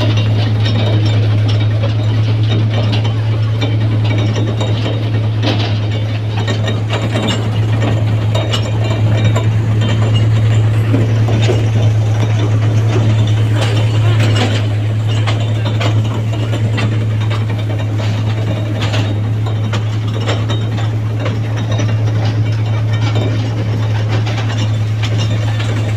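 Toy train running, a steady low drone with constant rattling and clattering of the carriages.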